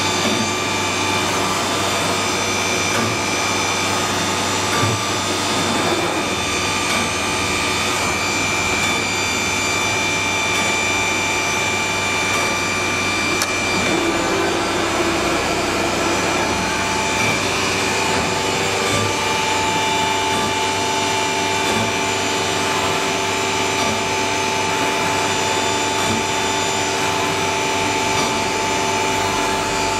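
HG-1325AH3 CNC router's spindles and drilling head running while drilling a panel: a steady machine noise with a high whine. The whine drops to a lower tone about halfway through.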